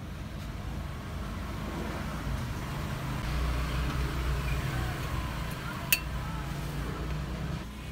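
Swing-top glass oil bottle being handled, its wire clasp giving one sharp click about six seconds in, over a steady low rumble.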